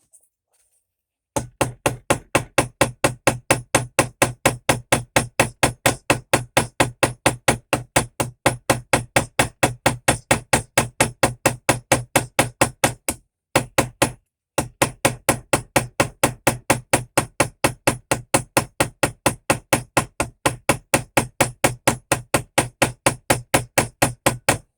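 A small hammer peening a metal pin in a pocket knife's handle, with rapid even blows at about four a second and a short pause about halfway through.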